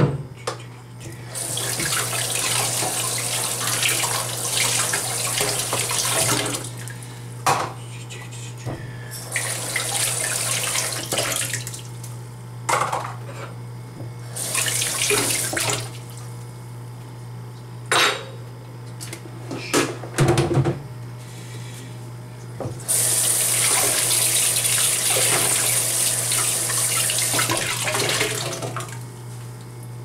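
Kitchen faucet running in four spells, turned on and off, as coffee maker parts are rinsed under it, with a few sharp knocks of plastic parts against the sink in between. A steady low hum underlies it all.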